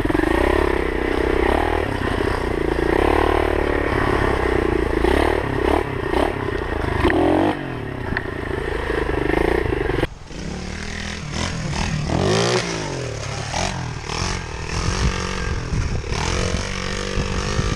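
Pit bike's single-cylinder engine running hard under throttle, its pitch rising and falling, with clattering and scraping from the bike over rough ground. About ten seconds in the sound cuts abruptly to a quieter take of the engine revving up and down.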